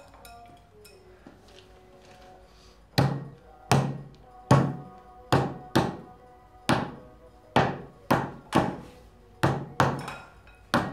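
Wooden meat mallet pounding meat on a board at the table: about a dozen heavy thuds, starting about three seconds in and coming at an uneven pace, roughly one every half second to second.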